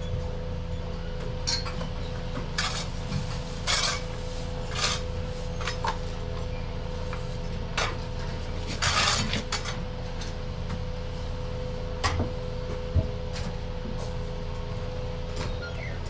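Steady low hum of dairy-barn equipment with scattered metallic clinks and knocks, a longer rattle about nine seconds in being the loudest.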